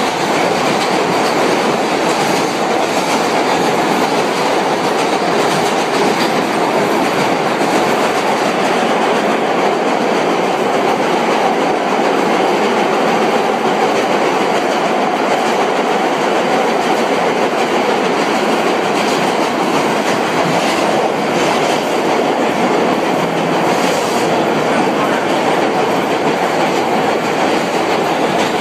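Vintage R1–R9 'Arnine' New York City subway car running between stations, heard from inside: a steady loud rumble and rattle of the car, with occasional faint clicks of the wheels over rail joints.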